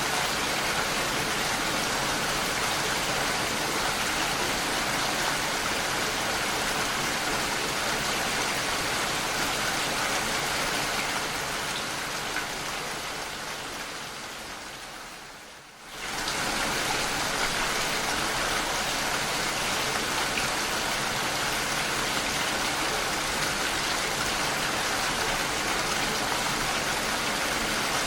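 Steady rain falling. About halfway through it fades down over a few seconds and then cuts back in at full level, the seam where the rain recording loops.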